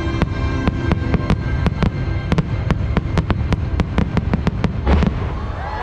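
Fireworks going off in a rapid series of sharp bangs, about five a second, over loud orchestral show music, with a heavier boom near the end.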